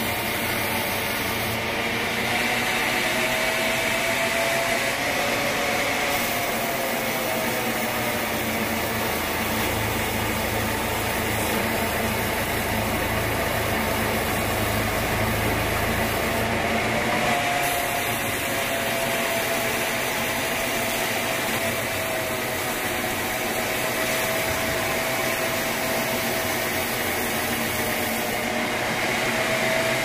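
Vertical band sawmill running and ripping an acacia log: a steady mechanical whir with a faint wavering whine. A deeper rumble joins in for several seconds in the middle.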